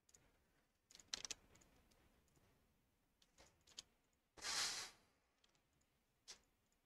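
Faint computer keyboard keystrokes and clicks, a few scattered taps, with a short rush of noise about four and a half seconds in.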